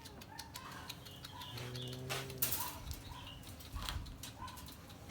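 Small birds chirping with short, repeated calls, with a brief rush of noise about two and a half seconds in.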